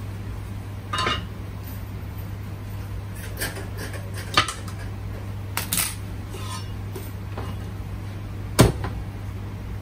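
A handful of short clinks and knocks of dishes and kitchen utensils, scattered over several seconds, the loudest near the end, over a steady low hum.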